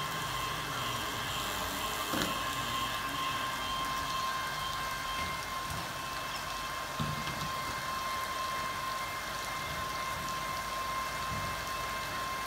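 Weber kettle rotisserie's electric spit motor running, a steady whine under an even hiss that fits light rain.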